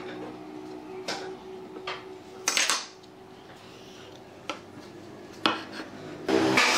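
Scattered sharp taps and clinks of a steel ruler and pine boards being handled and set down on a wooden workbench, with a louder clattering cluster about two and a half seconds in. Near the end a louder, continuous rasping noise begins.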